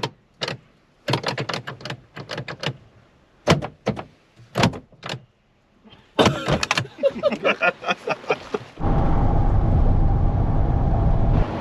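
Gulls calling: sharp, short cries, some in quick series, then squealing calls whose pitch bends. About nine seconds in, a steady, loud rushing noise starts and covers them.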